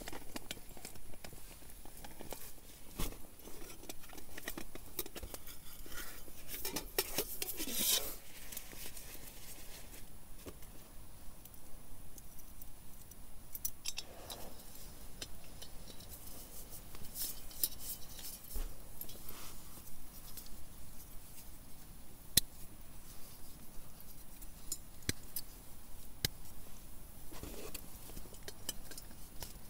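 Hands unpacking a camping cook kit: small metal clicks and taps from a pot and its lid, and plastic packaging rustling and crinkling, loudest about seven seconds in.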